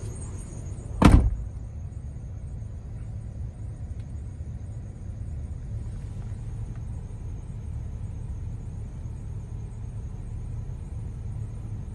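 Steady low road and engine rumble inside a moving car's cabin, with one loud thump about a second in.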